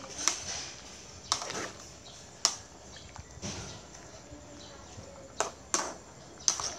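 Metal spoon clinking against the side of a metal soup pot while stirring, about six sharp clinks at irregular intervals.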